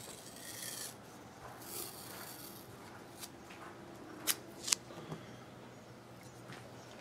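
Faint rubbing and rustling of hands handling multimeter test leads, with two sharp clicks about half a second apart a little past the middle.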